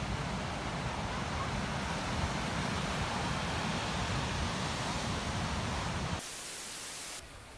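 Ocean surf breaking on a sandy beach, heard as a steady wash with wind rumbling on a phone microphone. About six seconds in the rumble drops out, leaving about a second of hiss before the sound goes quieter.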